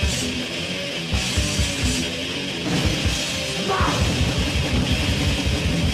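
Heavy metal music: distorted electric guitar over fast, dense drumming.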